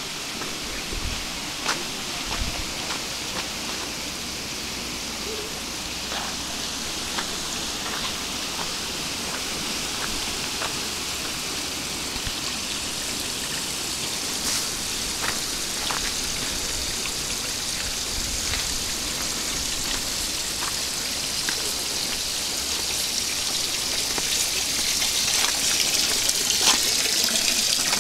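Water trickling and splashing steadily into stone basins, growing louder toward the end, with scattered light taps.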